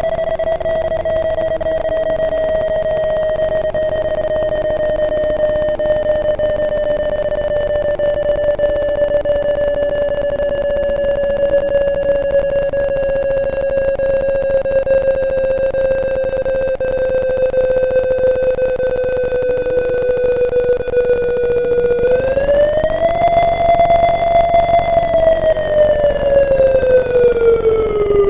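ACA P-50 electromechanical siren sounding a steady wailing tone that slowly sinks in pitch for about twenty seconds as the rotor coasts. It then winds back up to full pitch, holds briefly, and falls again near the end.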